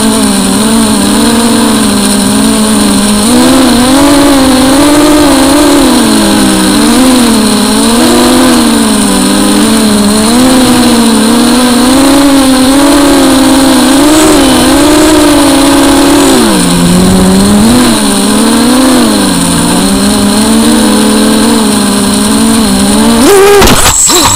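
FPV quadcopter's electric motors and propellers buzzing loud and close, heard from its onboard camera, the pitch rising and falling constantly with the throttle. Near the end the pitch shoots up and breaks into a rough clatter as the quad tumbles to the ground.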